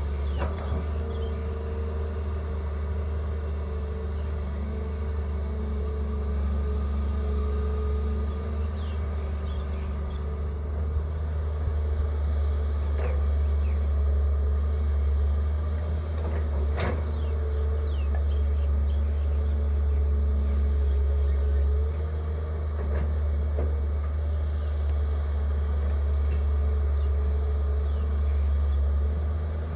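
Caterpillar hydraulic excavator working, its diesel engine running steadily under load with a steady whine over the low rumble as it digs and dumps soil. A few sharp knocks sound from the boom and bucket.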